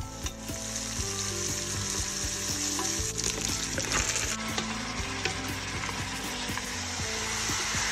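Lamb pieces and sliced onion sizzling in hot olive oil in a steel pot, stirred with a wooden spoon that gives scattered knocks and scrapes against the pot.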